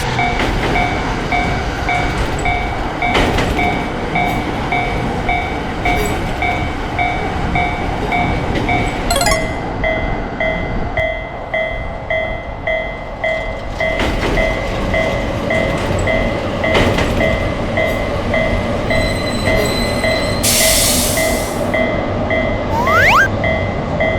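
Japanese level-crossing warning bell ringing in a fast, even repeating pattern while a train runs past with a steady rumble of wheels on rail. About nine seconds in the bell changes to a slightly lower pitch; a short hiss comes near the end, followed by two brief rising whistles.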